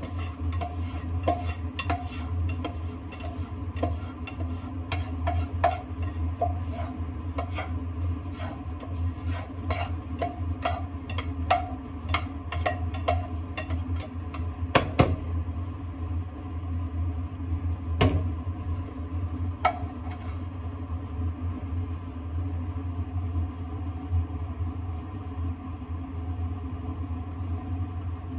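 A nylon slotted turner scraping and knocking against a small saucepan while scrambled eggs are stirred: a run of sharp clicks about two a second for the first half, then only a few sparse knocks. A steady low hum from the induction cooktop runs underneath.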